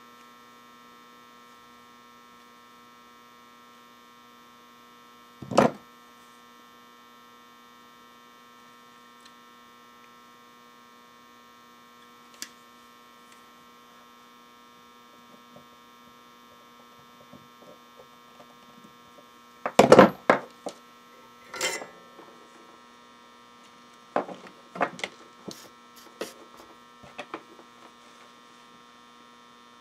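Steady electrical mains hum, with scattered sharp clicks and knocks from wire and a soldering iron being handled on a workbench: one loud knock about five seconds in and a loud cluster around twenty seconds in, followed by a few lighter clicks.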